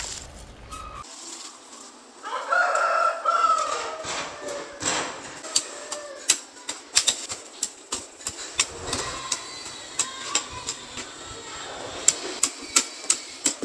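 A rooster crows once, about two seconds in. A run of sharp taps or knocks follows, coming about three a second near the end.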